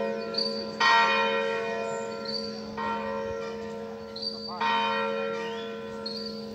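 The cathedral tower's four church bells are swung in full peal ('a distesa', plenum). Strong ringing strokes come about every two seconds, with lighter, higher strokes between them, over a steady hum of the bells ringing on. The peal grows gradually fainter.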